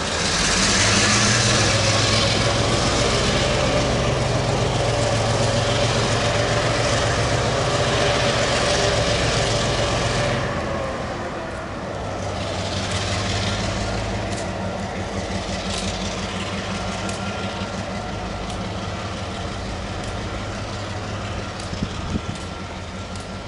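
EMD G12 diesel locomotive engine running as the freight train rolls slowly past. A loud hiss and a steady tone ride over the engine for about the first ten seconds and then die away. After that the engine drone continues, softer, with scattered clicks.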